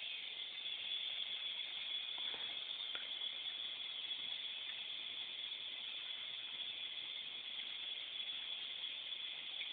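Steady hiss of water running into a bathtub, with a couple of faint splashes or taps about two to three seconds in.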